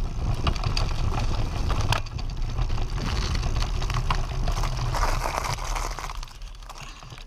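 Low rumble of a mountain bike's knobby front tyre rolling over a dirt trail and then pavement, with wind and road vibration on a camera mounted next to the tyre. The noise changes abruptly about two seconds in and grows quieter near the end.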